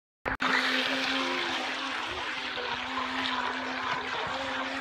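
Toy RC jet boat running fast across a swimming pool: a steady electric-motor whine over the hiss and splash of its jet spray and wake. It cuts in abruptly a moment in.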